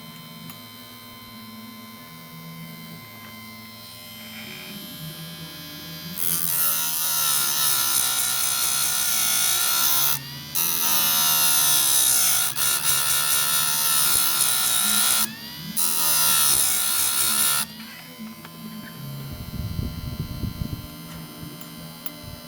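Small electric grinder sharpening chainsaw chain teeth. The motor runs on its own at first. From about six seconds in, the wheel grinds against the steel teeth in three passes with short breaks between, the motor's pitch dipping and recovering under the load.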